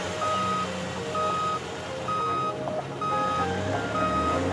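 Truck reversing beeper sound effect: a steady, high beep repeating about once a second, five times, over a low rumble.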